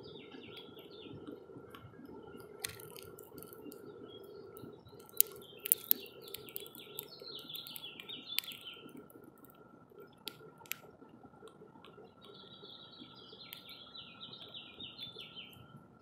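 Small songbirds at a feeder chirping and chattering in three bursts: one at the start, one from about 4 to 9 seconds in, and one from about 12 to 15 seconds in. A few sharp clicks or taps come in between, the loudest a cluster about five to six seconds in.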